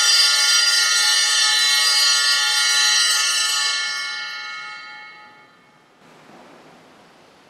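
Altar bells ringing at the elevation of the chalice after the consecration, many high ringing tones together, held steady, then stopping and dying away by about six seconds in, leaving faint room tone.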